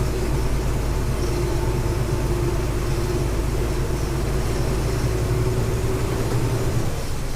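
Volksbus 17.230 EOD city bus's diesel engine running steadily, with a steady whine above the low hum from about a second in that fades out near the end.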